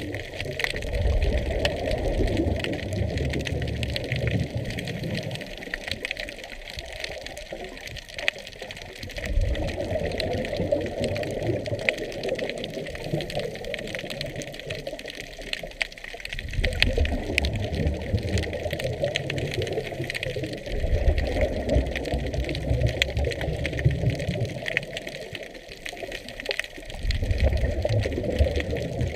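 Scuba regulator exhaust bubbles from a diver breathing underwater: about five bursts of low bubbling rumble, each a few seconds long, with quieter gaps between them for the in-breaths. A faint crackle of fine clicks runs underneath.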